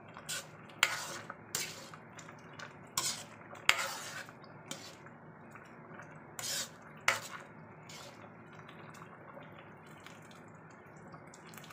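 Metal ladle stirring a thickened soup in a wok, clinking and scraping against the pan about eight times in the first seven seconds, then softer sloshing and dripping of the broth.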